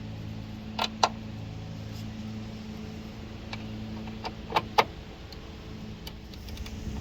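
A few sharp metallic clicks and clinks of hand tools on metal fittings: a pair about a second in and a quick cluster a little past halfway, over a steady low hum.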